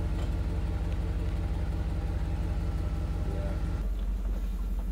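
Pickup truck driving, a steady engine and road rumble; about four seconds in the sound changes abruptly to a deeper rumble.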